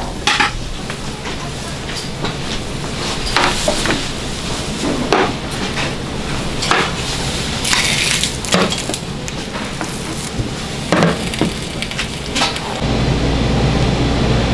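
Scattered knocks and clicks of dishes and utensils over a steady noisy background. Near the end it cuts to a steady low hum.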